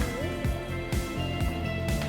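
Background music with a steady beat and a held melody.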